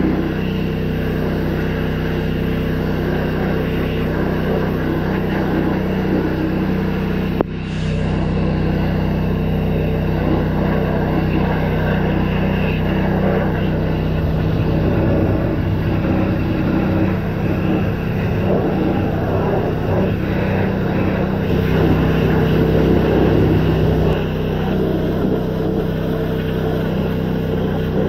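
An engine running steadily at a constant speed, cut off abruptly about seven seconds in and then picking up again much the same.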